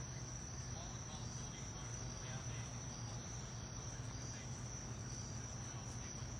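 A steady, high-pitched chorus of insects trilling, with a low steady hum beneath it.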